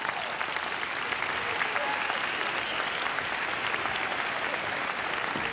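A large seated audience applauding, with steady, dense clapping from many hands.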